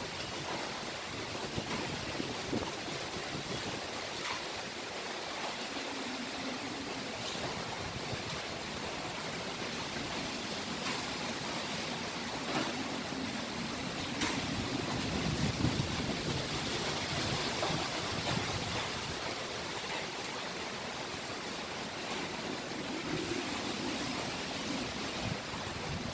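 Typhoon wind blowing hard and steadily as a dense rushing noise, swelling in gusts around the middle, with a few faint ticks.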